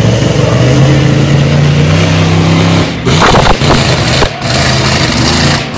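Monster truck engine revving hard as the truck accelerates at a row of crushed cars, its note climbing steadily over the first three seconds. About three seconds in it breaks into a loud, rough burst as the truck launches over the car pile.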